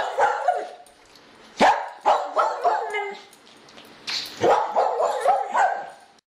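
A dog barking repeatedly in short bursts, cutting off suddenly just before the end.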